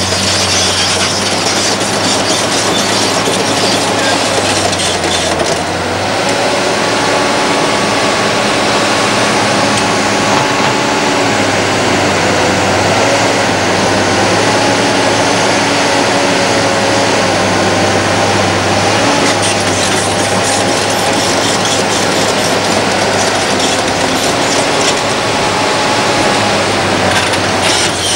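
Liebherr R962 Litronic hydraulic crawler excavator working: its diesel engine runs steadily under a wavering hydraulic whine that rises and falls with the load, over a continuous mechanical rattle.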